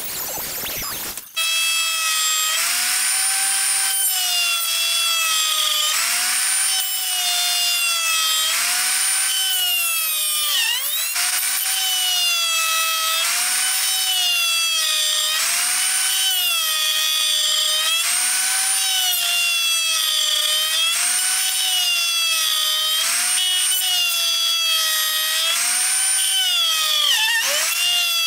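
Electric plunge router cutting pine: a high motor whine that starts about a second in, then sags and recovers in pitch every two to three seconds as the bit is pushed through the wood, dipping sharply twice.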